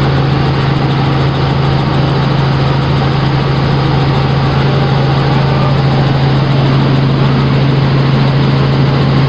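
Helicopter in flight heard from inside the cabin: a loud, steady drone of engine and rotor with a strong low hum.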